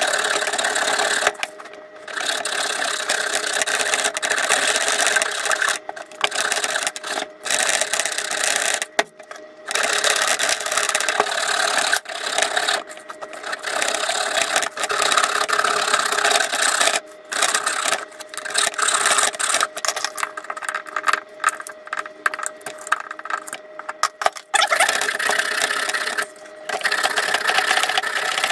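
Bare hand-held hacksaw blade sawing through the lead terminal posts of a car battery: steady rasping back-and-forth strokes, broken by short pauses every few seconds.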